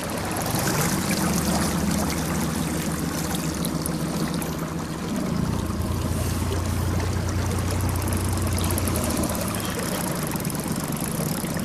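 Outboard motor idling on an inflatable boat: a steady low hum that shifts pitch about five seconds in, over trickling and splashing water.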